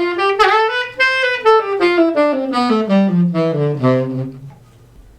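Saxophone playing a run of separate notes that climbs for about a second, then steps back down to a low note and stops about four and a half seconds in.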